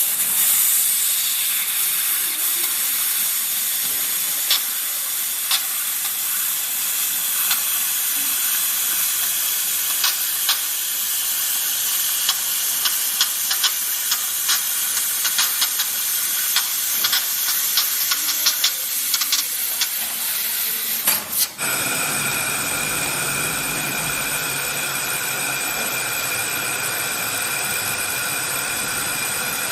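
Handheld fiber laser machine working on metal: a steady hiss with sharp crackles scattered through it. About two-thirds of the way in it stops for a moment and restarts as a steadier, more even hiss with a few steady tones.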